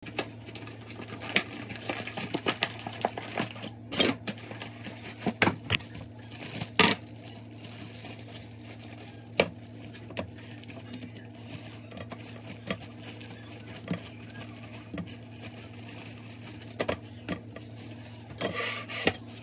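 Packaging and bakeware being handled: a cardboard box and a plastic bread bag crinkling, with irregular clicks and knocks as slices of Texas Toast are laid on a foil-lined metal sheet pan, the loudest about four and seven seconds in. A steady low hum runs underneath.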